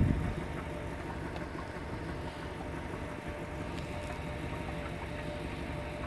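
An engine idling steadily with a faint steady hum; a louder low rumble drops away just as it begins.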